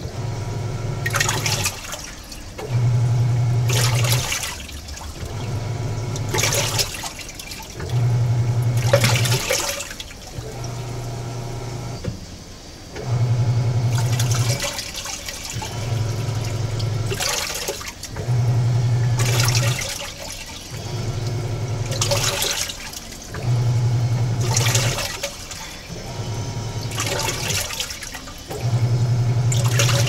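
Electrolux EWT705WN washing machine agitating its wash load. The motor hum comes in spells of about a second and a half with short breaks, and water surges and splashes in the tub at each break, in an even rhythm of roughly one cycle every two seconds.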